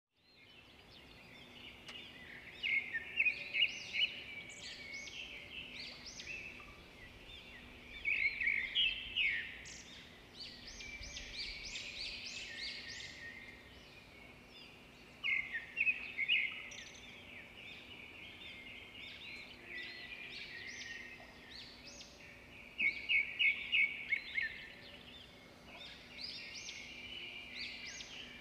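Birdsong: louder bursts of rapid, repeated chirping notes about every six to eight seconds, with quieter chirps between them.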